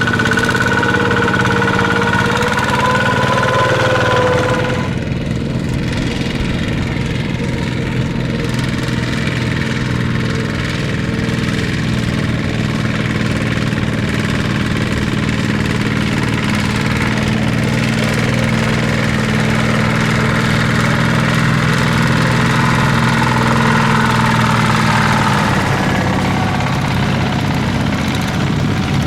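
Tractor engine running steadily under load, its pitch shifting about four to five seconds in and again near the end.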